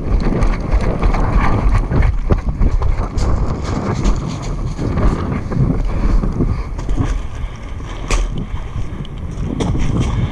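Wind rumbling on a body-worn camera's microphone as the wearer runs, with irregular knocks from footsteps and gear.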